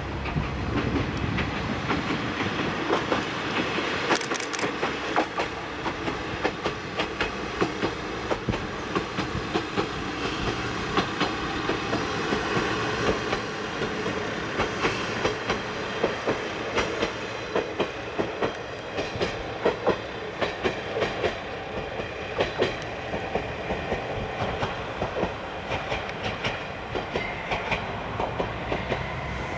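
Diesel railcar of a rural local line running along the track, its wheels clacking over rail joints with a steady run of sharp clicks and knocks.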